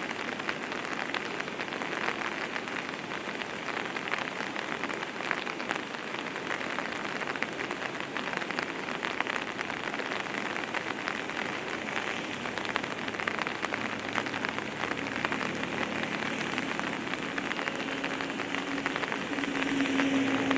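Steady, dense water noise full of fine crackles, like heavy rain or rushing floodwater. A faint low hum creeps in about two-thirds of the way through and is loudest near the end.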